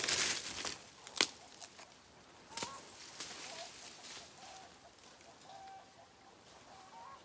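Free-range chickens clucking faintly now and then, with loud rustling in the first second and a sharp crack about a second in, and another a second or so later.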